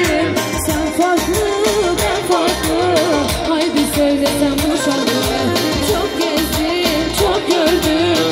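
Loud dance music with a steady drum beat under a wavering, ornamented melody line.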